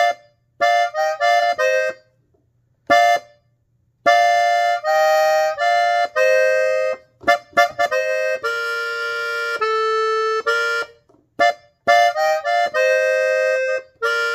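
Hohner Anacleto three-row diatonic button accordion in F playing on its treble side. It plays short runs of quick notes with brief pauses, then several seconds of held chords that change pitch a few times, then quick phrases again near the end.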